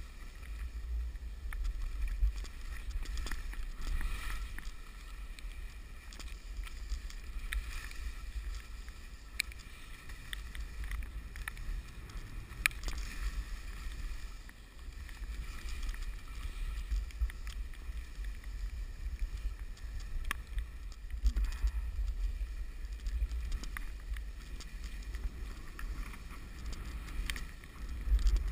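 Skis running and hissing through wet snow while skiing downhill in the rain, with wind buffeting the action-camera microphone in a low rumble and scattered sharp taps, likely raindrops hitting the camera housing.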